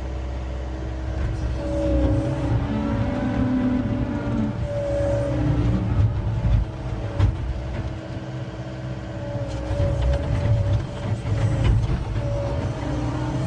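John Deere 333E compact track loader's diesel engine running under load, with a hydraulic whine that rises, falls and shifts as the splitter and loader controls are worked. A few sharp knocks come near the middle.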